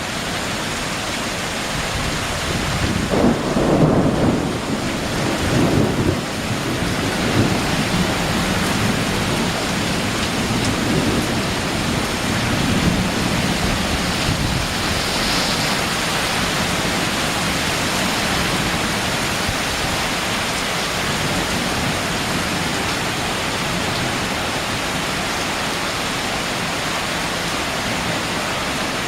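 Heavy rain pouring down steadily in a windy thunderstorm, with several low rolling rumbles swelling and fading during the first dozen seconds.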